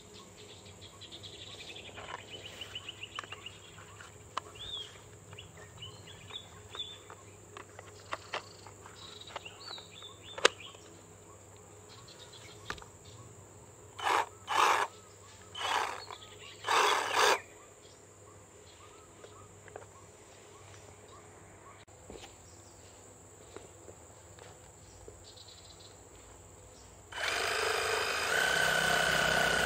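Bull BL 523 cordless reciprocating saw: a few handling clicks with birds chirping faintly, four short bursts of the saw about 14 to 17 seconds in, then near the end the saw running steadily as its wood blade cuts into a rubber-tree branch.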